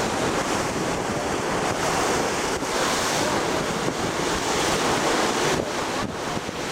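Wind buffeting the microphone over the steady rush of sea water, heard from aboard a boat on open sea.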